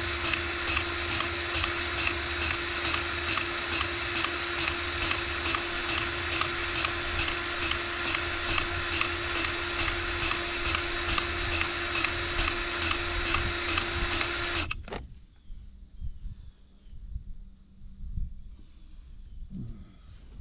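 A machine runs steadily with a constant whine and a regular ticking, then stops suddenly about fifteen seconds in, leaving only faint low knocks and rustle.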